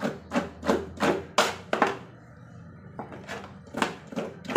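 Knife scraping a scalded cow's snout in quick repeated strokes, about three a second, stripping off the softened hair and outer skin; the scraping pauses for about a second midway, then resumes.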